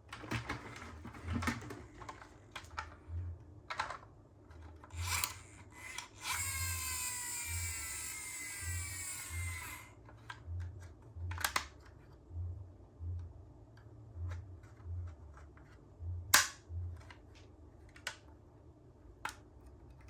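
Small plastic toy cars clicking, knocking and rattling on a plastic toy slide, with a sharp knock about 16 seconds in. In the middle, for about three and a half seconds, a hissing sound with several tones that slowly fall in pitch.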